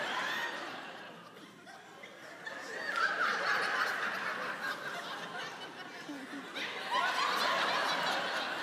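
Studio audience laughing, swelling about three seconds in and again about seven seconds in.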